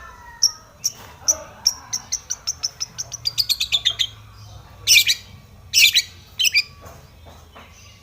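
Long-tailed shrike (cendet) singing: a string of sharp notes that speeds up and slides down in pitch over several seconds, followed by three loud, harsh calls.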